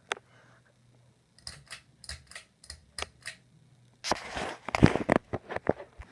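Ceiling fan motor humming faintly under a series of irregular sharp clicks and knocks, with a short rustling burst about four seconds in and the loudest knock just after it.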